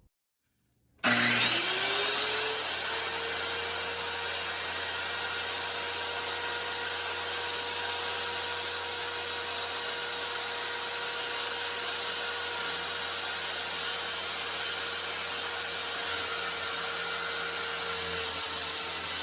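Electric circular saw switched on about a second in, its motor and blade spinning up with a rising whine, then running steadily at full speed.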